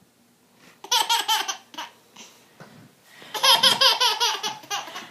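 A small child laughing in fits of rapid, high-pitched ha-ha-ha, one burst about a second in and a longer one from about three seconds in.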